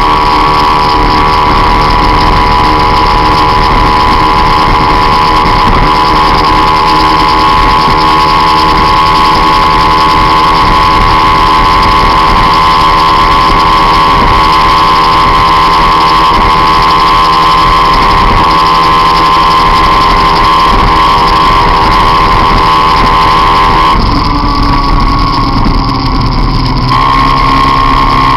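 Peugeot Jetforce Compressor scooter's supercharged two-stroke engine running loud and steady at high revs under way, close to the microphone. About 24 seconds in, its note drops and changes for about three seconds, then returns to the same steady pitch.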